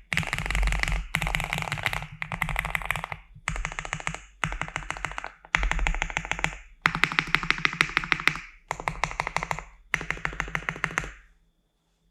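Spark67 mechanical keyboard with Gateron Pro switches, PE foam and a tape mod under the PCB, meant to give a more "thocky" sound, being typed on fast. The keystrokes come in quick runs of about a second with short pauses between, and the typing stops near the end.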